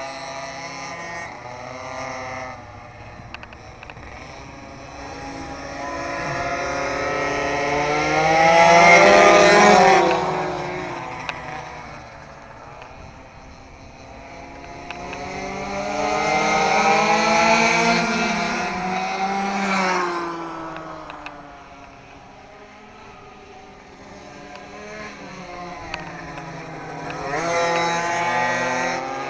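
Minimoto pocket bikes, including a Blata WRS Elite, racing with small high-revving two-stroke engines. Their pitch rises and falls as the riders rev through the corners. They get loud each time they pass close by: about nine seconds in, around the middle, and near the end.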